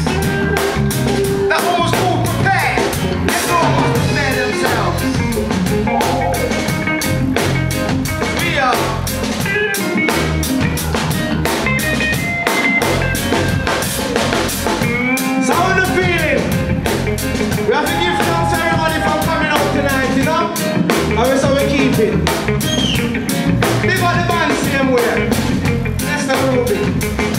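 Live reggae band playing: drum kit keeping a steady beat under electric guitar and keyboard.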